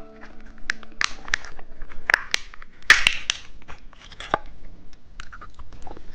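Crinkly plastic candy packaging being handled and torn: irregular sharp crackles and short rustles, with a few faint musical tones dying away about a second in.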